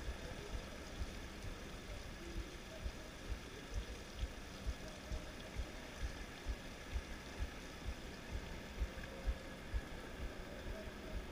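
Outdoor background noise with low, even thuds about twice a second.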